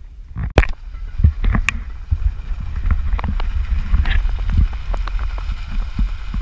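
Wind buffeting a camera microphone held outside the window of a car driving on a gravel dirt road: a heavy low rumble with tyre noise and many small scattered knocks, and one sharp knock about half a second in.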